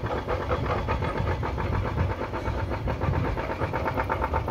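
An engine running steadily: a low rumble with a fast, even pulse.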